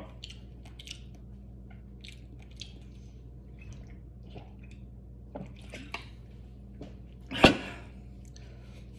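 Faint wet clicks and smacks of a person chewing, over a low steady room hum, with one louder short knock about seven and a half seconds in.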